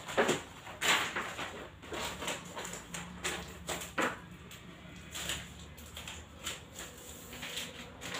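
Large paper chart sheets rustling and crackling in irregular bursts as they are handled, unfolded and pressed flat onto a wall.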